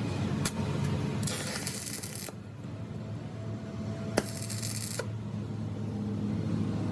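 Metal lathe running with a steady low hum, broken by two bursts of bright hissing scrape and a few sharp metallic clicks.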